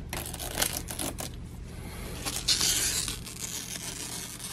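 Clear protective plastic film being peeled off a new computer monitor, crinkling and crackling with small ticks, with a louder hissing stretch of peeling about two and a half seconds in.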